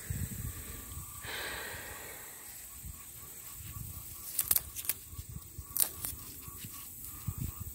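Garden plants rustling as they are handled, with a few sharp snaps near the middle as bean pods are picked by hand, over low thumping handling noise.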